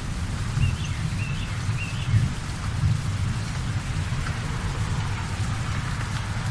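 Heavy rain pouring steadily: an even hiss over a deep rumble. Three short high chirps sound in the first two seconds.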